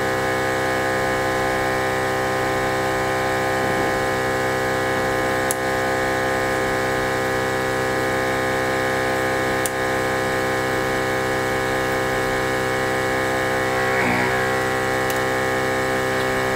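OM-518Plus LCD separator machine running with a steady, many-toned motor hum while its cutting wire separates the broken screen, with a couple of faint clicks.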